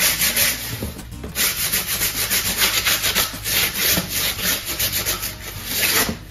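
Stiff stripping brush scrubbed hard back and forth over foam board in rapid rasping strokes, scraping off loose crumbs and roughening the surface into a rock texture. The scrubbing breaks off briefly about a second in and stops just before the end.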